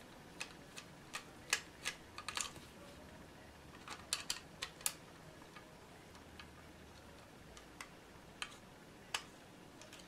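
Small, irregular metallic clicks and ticks of a screwdriver backing screws out of a cooling fan mounted on a heatsink. They are frequent in the first half and sparser near the end.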